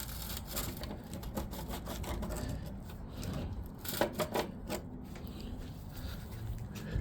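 Metal pick tool scraping, prying and clicking against a rust-packed spacer sleeve seized in a rubber mount, with a quick run of sharp ticks about four seconds in.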